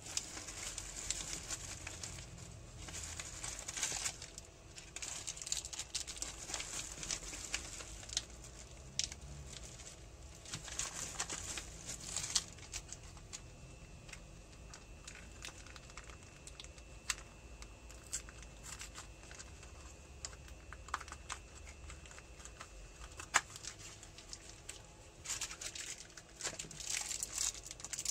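Packaging crinkling and rustling in bursts as new bearings are unwrapped, with a few sharp clicks.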